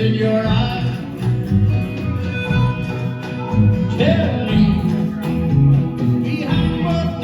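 A live folk-rock band playing a passage with guitars, bass and drums under a steady beat, a melodic line sliding up about four seconds in.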